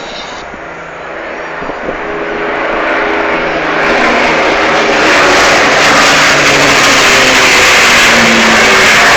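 Two Avro Lancaster bombers flying past, the drone of their four-engined Rolls-Royce Merlin powerplants growing louder over the first few seconds as they approach, then holding loud and steady.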